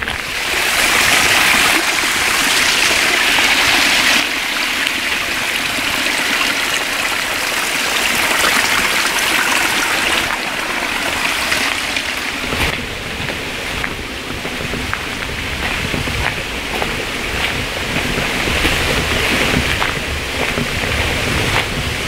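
Running water: a steady, even rush that lasts throughout, with a low rumble joining in from about halfway.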